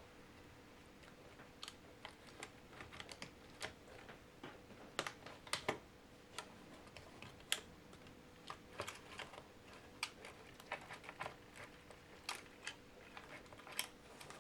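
Quiet, irregular light clicks and taps of a laptop's plastic and metal parts being worked loose by hand during disassembly.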